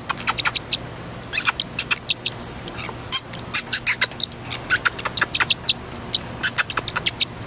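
Parrotlet chirping: a rapid run of short, sharp, high chirps, several a second, with a brief pause about a second in.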